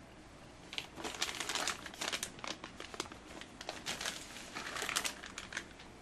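Plastic packaging crinkling and rustling as motherboard accessories are handled, starting about a second in and going on in a run of quick crackles until near the end.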